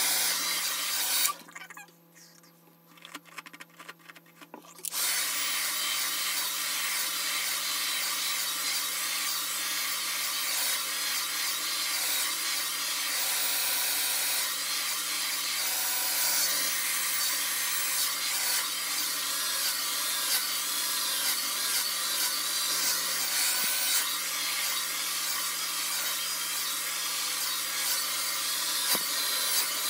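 Handheld hair dryer blowing steadily. It stops about a second in and starts again some three and a half seconds later.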